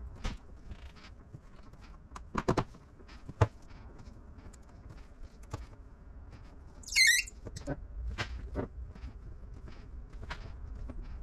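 Scattered soft clicks and taps of hands and a plastic squeegee working wet paint protection film over a hood edge, with a brief high squeak about seven seconds in.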